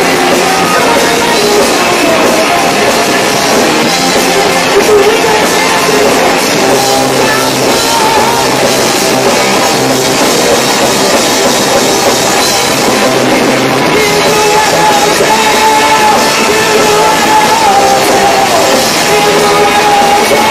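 Live rock band playing loud and steady, with electric guitars, bass guitar and drum kit. The sound is distorted, because the camcorder microphone is overloaded by the volume.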